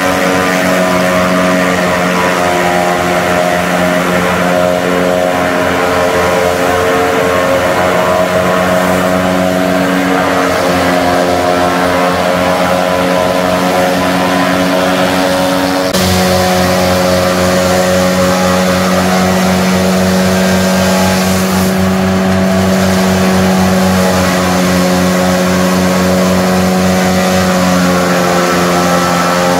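John Deere 3350 tractor's diesel engine running steadily at working speed, driving a PTO forage chopper that is being fed green grass stalks.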